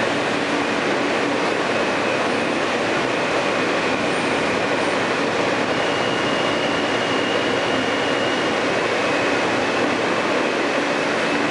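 Interior of an R160A subway car in motion: a steady running rumble of wheels on rail, with a faint high wheel squeal that comes and goes.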